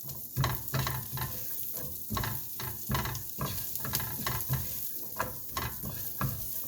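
Asparagus and garlic sauce sizzling in a hot pan while being stirred and tossed, the utensil knocking against the pan two or three times a second over a steady sizzle.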